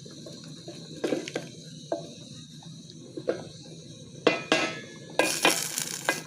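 A spoon knocking and clinking against a metal sufuria (cooking pot) of rice, with half a dozen separate knocks, then a brief hiss about five seconds in.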